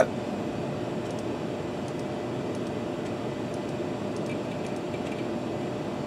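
Steady fan hum with a low drone, and a few faint clicks.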